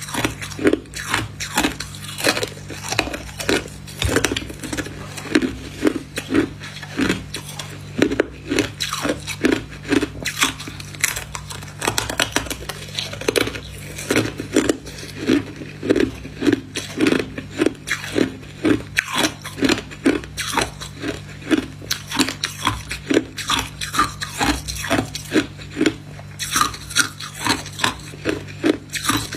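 Frost-covered ice being bitten and chewed close to the microphone: a steady run of sharp, loud crunches, about two to three a second.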